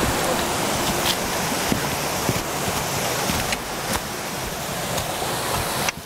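Mountain stream rushing over boulders: a steady, even rush of water.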